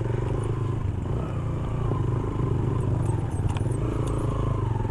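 Motorcycle engine running steadily at low speed over a rough, rocky track, heard from the rider's seat, with a couple of short clatters from the bike jolting over stones near the end.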